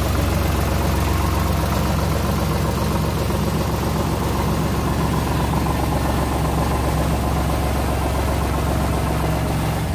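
Eicher 485 tractor's 45 hp three-cylinder diesel engine running steadily at idle.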